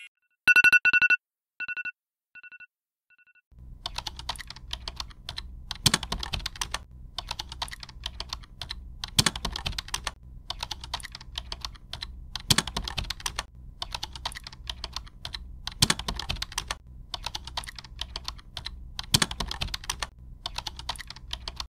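Keyboard typing sound effect: rapid, irregular key clicks with a heavier stroke about every three seconds, starting a few seconds in. Before it, a short beep-like tone repeats several times and fades away like an echo.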